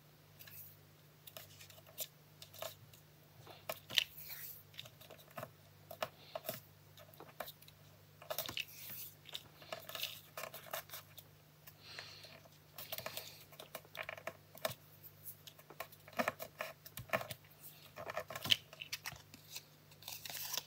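Cardstock and paper being handled on a craft table as a piece is stuck on: irregular short rustles, taps and scrapes of paper pressed and smoothed down.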